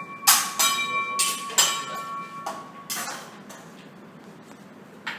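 Metal kitchenware clanking: a quick series of sharp metallic knocks in the first three seconds, each leaving a short ringing tone, then one more knock near the end.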